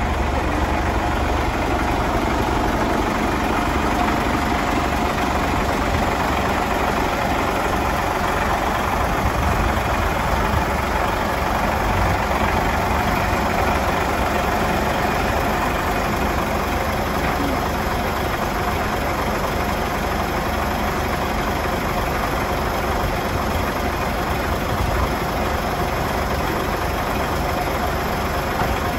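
Heavy truck's diesel engine running steadily at idle.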